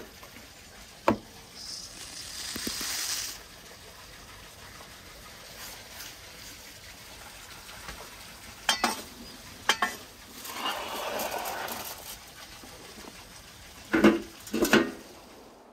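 Kitchen work sounds in quick succession: sharp knocks, two short spells of hissing noise, and near the end a few loud metal clanks as the latch handles of a metal oven door are worked open.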